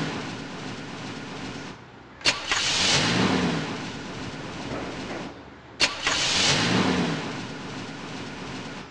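A recorded motorcycle engine start-and-rev sound effect, played over and over. Each play is a sharp click followed by a noisy rev that rises and falls in pitch and fades away. One is already fading at the start, and new ones begin about two and six seconds in.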